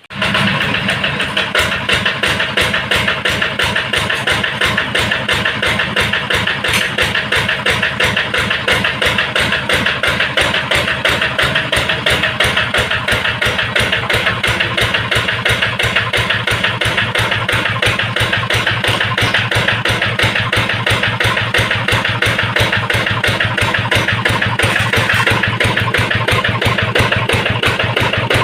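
Yanmar TF65 single-cylinder diesel engine running steadily with an even, rapid beat.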